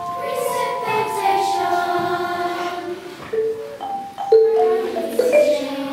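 Children's treble choir singing, accompanied by mallet percussion. Long held notes step downward, then the line moves in shorter notes from about halfway through.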